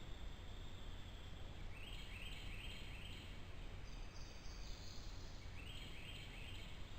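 Faint outdoor pond-side ambience: a steady low background rumble, with a small bird singing short runs of quick high notes about two seconds in and again near the end.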